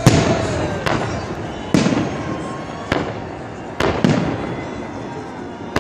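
Aerial firework shells bursting in a salute display: about five sharp bangs, roughly a second apart, each trailing off in a low rolling echo.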